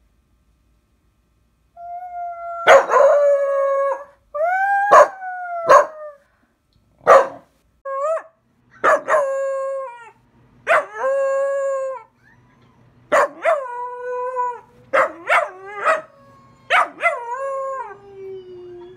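Pembroke Welsh corgi puppy howling, starting about two seconds in: a series of drawn-out, wavering howls, most of them opening with a short sharp yip. The last howl slides down in pitch near the end.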